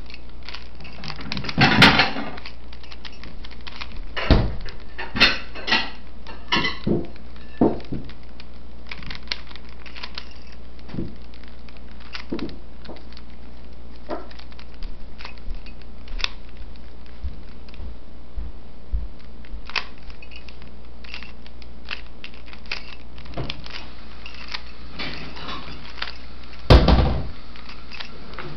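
Plastic 3x3 Rubik's cube being turned by hand: irregular clicks and clatter of the layers turning, with louder flurries of quick turns near the start and again near the end, over a steady low hum.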